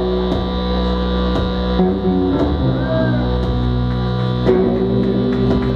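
Live band music: a loud droning chord of held low notes that shifts to new notes about two seconds in and again about four and a half seconds in.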